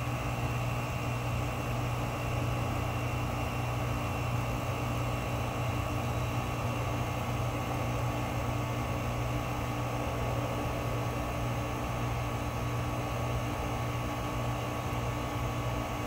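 Bryant heat pump outdoor unit running with a steady low hum and even whoosh, unchanging throughout.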